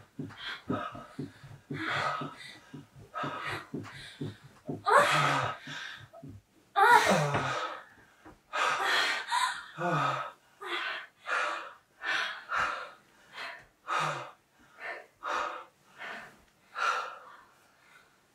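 A couple's rhythmic gasping breaths and moans during sex, with two louder drawn-out moans about five and seven seconds in. After that the gasps come evenly, a little under one a second.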